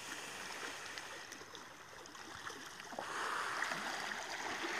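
A person drawing on an e-cigarette, then a long exhale of vapour from about three seconds in.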